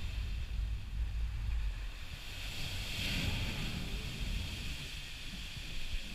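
Ocean swell surging into a cave at the foot of a sea cliff and blasting out a plume of spray, heard as a swelling whoosh about three seconds in, over the low rumble of wind on the microphone.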